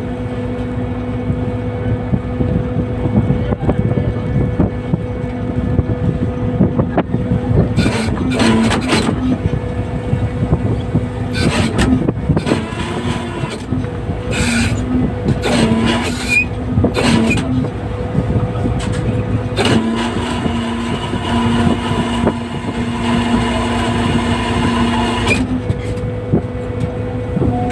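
A fishing boat's engine running steadily with a constant low hum, while bursts of rushing, clattering noise come and go over it in the middle stretch.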